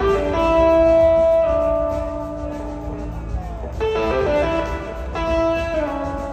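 Live blues-rock band playing, led by an electric slide guitar holding long sustained notes that glide between pitches, over drums and keyboards.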